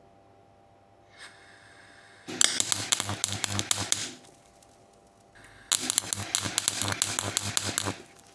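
Two short welding tacks: the arc crackles and spits for about two seconds each, once about two seconds in and again near the end. A brief hum comes just before each one. These are spot welds tacking a replacement radiator support cradle in place.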